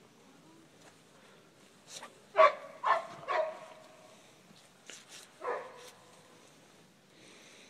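A dog barking: three quick barks about two and a half seconds in, then one more, falling bark about two seconds later.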